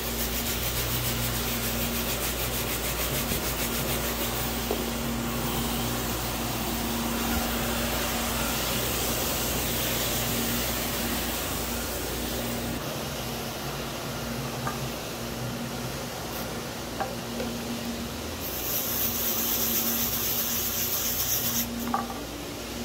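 Stiff hand brush scrubbing a spot of cleaning solution on rubber gym flooring: a steady, rapid back-and-forth rubbing, over a steady low machine hum, with a brief hiss near the end.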